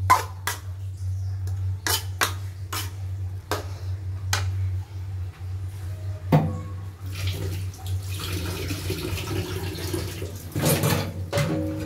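Metal ladle scraping and clacking against a steel wok as vegetables are stir-fried, a quick run of strikes over the first few seconds, then one clank about six seconds in as the ladle is set down. After that the sauce in the wok simmers with a steady bubbling hiss, with a low steady hum underneath throughout.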